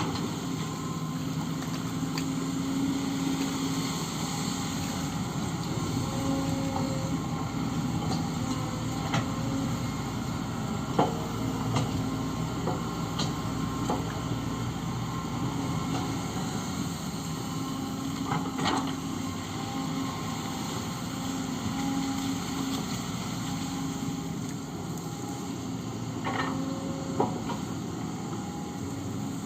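Kobelco SK130 hydraulic excavator's diesel engine running steadily under working load as it digs, with occasional short knocks and clanks from the bucket and arm.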